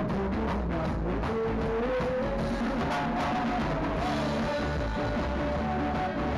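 Live rock band playing: electric bass, electric guitar, drum kit and saxophone, with a held melody line that climbs gradually over the first few seconds and then steps higher.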